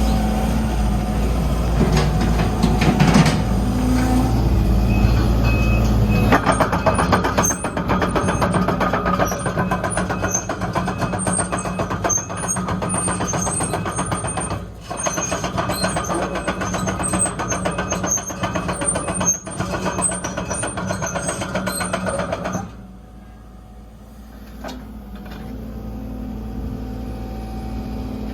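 Sumitomo SH120LC-6 excavator running: a steady diesel engine hum, then from about six seconds in a loud, fast clatter of the working machine over the engine. The clatter stops sharply near the end and the engine carries on more quietly.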